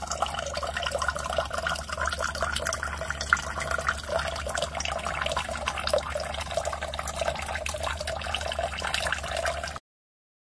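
Water from a countertop instant hot water dispenser's spout pouring in a thin stream into a small glass cup, a steady splashing trickle that stops abruptly near the end.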